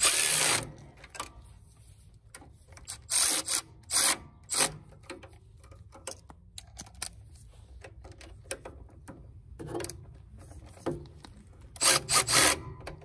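Ratchet wrench tightening bolts: several short bursts of rapid clicking on the back-strokes, with small metallic knocks between.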